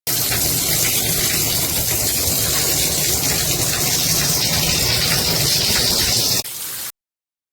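Shower water spraying steadily from a shower head. It steps down in level near the end, then cuts off abruptly.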